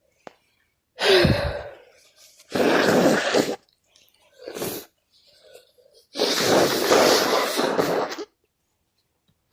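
A sneeze about a second in, followed by more loud, noisy bursts of breath, the last about two seconds long.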